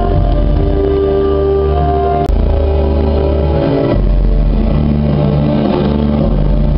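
Music of slow, long-held notes over a deep, steady bass. The higher notes thin out a couple of seconds in, leaving mainly the low bass.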